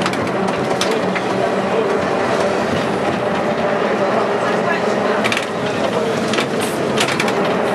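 Vintage wooden-bodied electric tram running along street track, heard from inside the car: a steady rumble and rattle of the body and wheels on the rails, with a few sharp clicks about five to seven seconds in.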